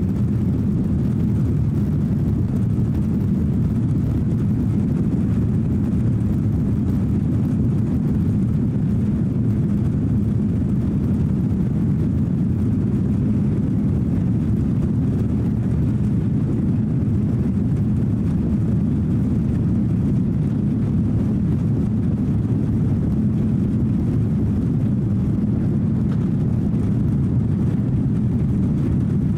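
Cabin noise of an Airbus A330-300 on its takeoff roll: a steady low rumble from the Rolls-Royce Trent 700 engines at takeoff thrust and the wheels rolling on the runway, heard from a seat over the wing.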